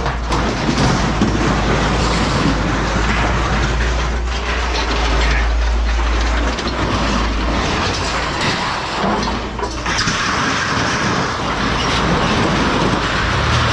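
Continuous rattling and clanking of scrap metal pieces being handled and loaded, over a low rumble that drops away about six and a half seconds in.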